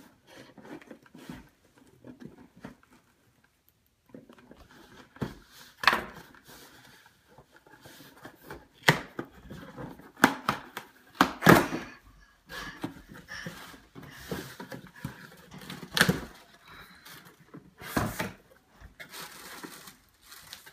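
Cardboard shipping box being opened by hand: scissors slitting the packing tape, then a run of sharp rips, scrapes and knocks as the tape is torn and the cardboard flaps are pulled open, with plastic packing rustling near the end.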